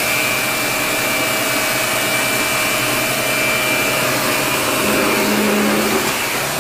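Shark Navigator Lift-Away Professional NV356E upright vacuum cleaner running steadily: an even rush of air with a steady high whine over it.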